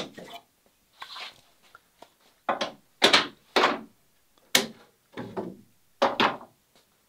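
A nail gun firing polymer nails to fasten wooden ribbands to a boat's building molds. It fires about eight sharp shots at uneven spacing, some less than half a second apart, others about a second apart.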